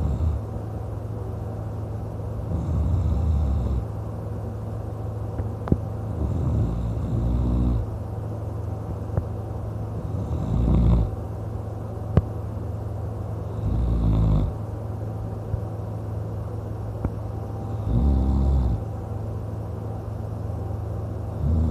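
A man snoring in his sleep, a bit louder than usual, one snore about every four seconds over a steady low hum. A few sharp clicks fall between the snores.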